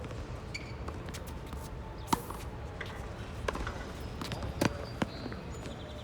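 Tennis ball knocks off racket strings and court surface during play: a handful of sharp, separate impacts. The loudest comes about two seconds in, and a quick double knock follows a little over two seconds later.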